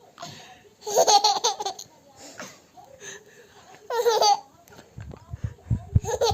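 A baby laughing in bursts of quick, high-pitched laughs, about a second in and again about four seconds in, with a few short squeals between. From about five seconds in, low thumps join in.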